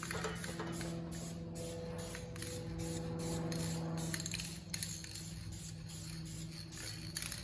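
Spray paint hissing in many short repeated passes as the Nissan SR20 engine is painted, with a steady low hum underneath for about the first four seconds.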